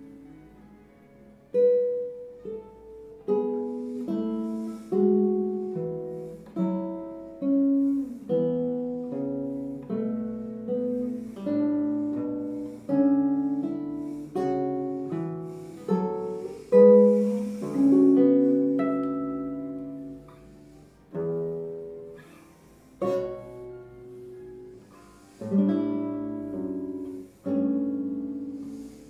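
Nylon-string classical guitar played solo: plucked notes and chords roughly once a second, each left to ring and fade before the next, with a couple of short lulls in the second half.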